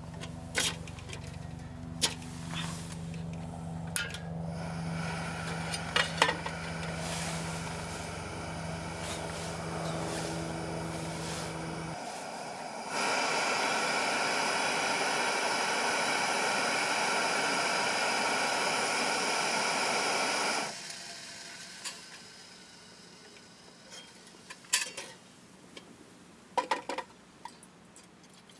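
Cookware and utensils clinking and knocking, over a steady low hum that stops abruptly about twelve seconds in. A loud, even rushing hiss then starts and cuts off after about eight seconds, followed by a few more clinks.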